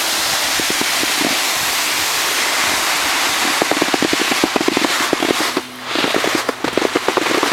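Steady rush of wind and sliding-on-snow noise from a camera moving down a ski slope, turning into a rapid rattling chatter from about halfway through, with a brief drop near the end.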